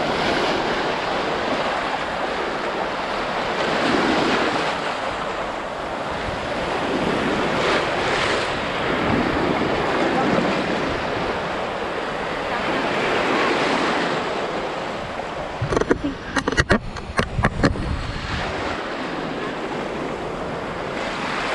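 Shallow surf washing in over a sandbar, with wind on the microphone. The noise swells and fades every few seconds. About sixteen seconds in, a cluster of sharp knocks and thumps lasts about two seconds.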